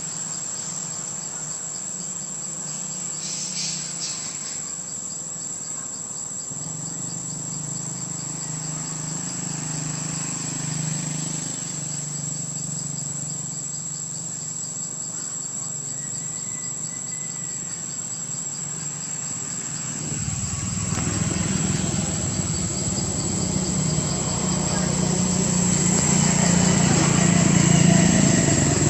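Insects calling as one steady high-pitched drone, with no break. A low rumble comes in partway through and grows louder over the last third, becoming the loudest sound near the end.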